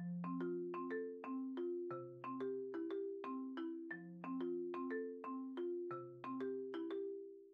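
Background music: a light, bouncy tune of short struck notes over a low bass line, fading out near the end.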